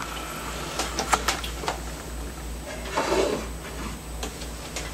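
Clicks and light knocks of small metal reloading parts being reached for and handled, with a rustling scrape about three seconds in, over a steady low hum.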